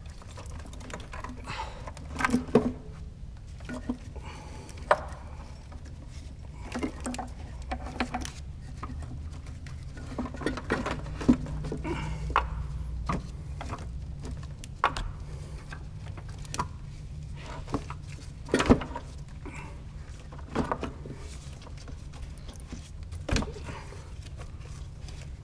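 Scattered clicks and knocks of hard plastic and metal parts being handled and fitted as a plastic intake manifold is set in place on a Ford 4.6 L V8, over a steady low hum.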